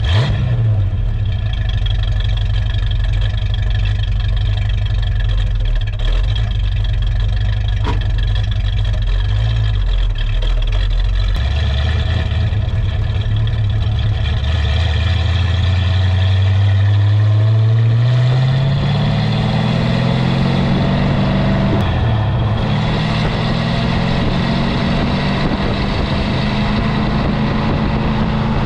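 1965 Ford Mustang GT's 289 V8 idling steadily for about ten seconds. The engine note then climbs as the car pulls away, drops back and climbs again as it drives off.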